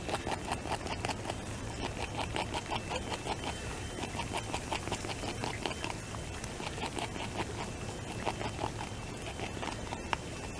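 North American beaver gnawing and chewing bark off a stick, a fast run of crisp crunching bites several times a second, with one sharper crack near the end.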